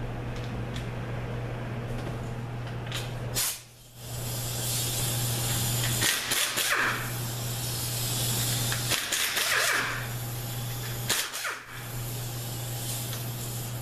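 Air tool running in several bursts of a second or two, with a hissing exhaust, as it works stubborn transmission case bolts loose.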